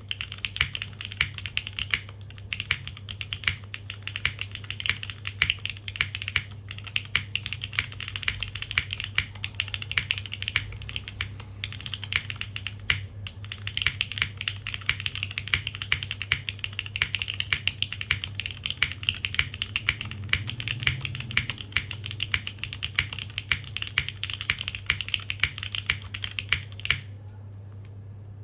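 Fast, continuous typing on a custom Adamas mechanical keyboard with linear Cherry MX Black switches on an aluminium plate and GMK keycaps: a dense run of keystroke clacks. The typing stops for about a second near the end, then a few more keystrokes follow.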